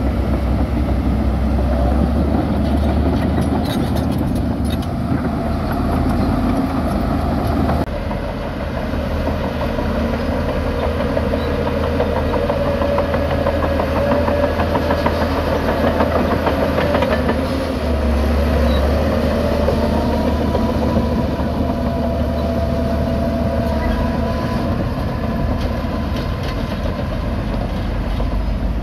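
Crawler bulldozer's diesel engine working under load as it pushes and backs through dirt, a steady heavy rumble whose pitch rises and falls with the throttle, with clatter from the steel tracks. The sound changes abruptly about eight seconds in.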